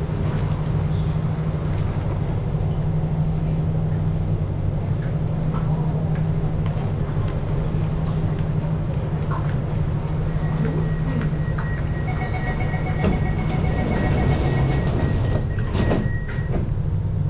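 Singapore MRT train standing at a platform with a steady low hum. About ten seconds in a steady warning tone starts, joined by a rapid run of door-closing beeps, and near the end the doors slide shut with a thud.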